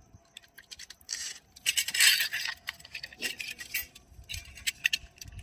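Paper wrapper being peeled open from a block of Amul butter held over a stainless steel bowl: rustling and scratching in uneven spells, loudest about two seconds in, with small clinks of metal against the bowl.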